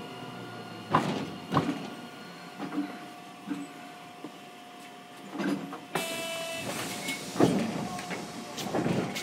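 Running noise of a Hiroden 3900-series tram fitted with a Toyo SiC inverter, heard from inside the car: a steady tone under the wheel and track noise, with several short clacks. About six seconds in a sudden louder noise with a cluster of high steady tones sets in.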